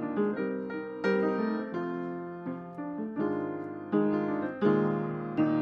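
Background piano music: a steady run of struck notes and chords.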